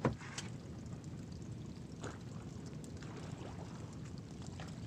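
Water sloshing and trickling around a small boat, with a few light knocks as the catch is picked up from the bottom of the boat.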